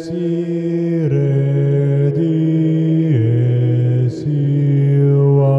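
Slow, chant-like singing on long held low notes that step down about a second in and again around three seconds, then rise back just after four seconds, with brief breaths between phrases.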